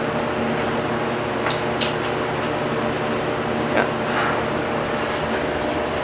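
Steady hiss with a constant low hum under it, and a few faint clicks.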